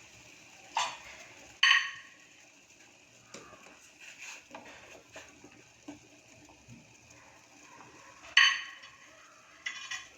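Metal cooking pot and lid clanking: two sharp knocks about a second in and another loud one near the end, each with a short metallic ring. This comes while a piece of jaggery goes into the boiling herbal tea and the pot is covered again.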